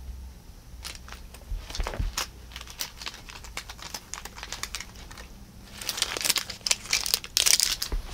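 A cat pawing and mouthing a feather toy on carpet: scattered clicks and rustles, then about two seconds of dense crinkling and scratching near the end.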